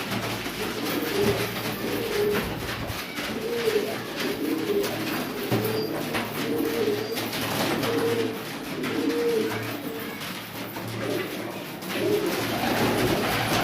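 Domestic pigeons cooing, low calls repeating and overlapping almost without a break.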